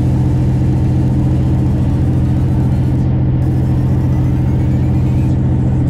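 Detroit Series 60 12.7-litre diesel of a semi-truck pulling steadily at highway cruise, a constant low drone heard from inside the cab. The engine is running on a freshly replaced turbo and exhaust manifold.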